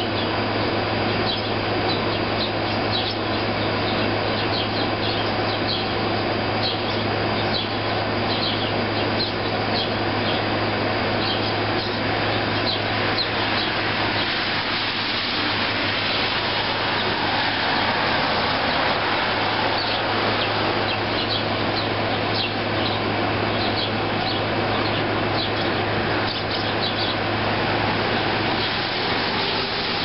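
Sparrows chirping, many short high chirps in loose clusters, over the steady hum and whoosh of a running air conditioner.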